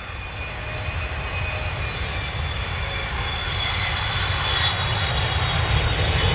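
A sound-effect recording of a steady engine-like drone: a low rumble with a faint high whine over it, swelling over the first second and then holding steady.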